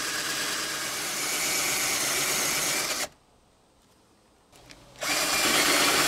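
Mastercraft cordless drill spinning a 1 1/4 inch hole saw through a pine board. The sound stops about three seconds in. After about two seconds of near silence it starts again, louder, as the hole saw bites into the wood for the next hole.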